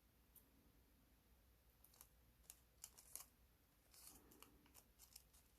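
Faint crinkles and taps of origami paper being folded and creased by hand, starting about two seconds in.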